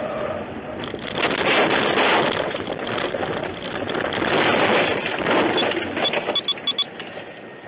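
A car ploughing off the road into deep snow: a loud rush of snow striking the body and windscreen, full of crunches and knocks, that dies down into a few sharp clicks near the end.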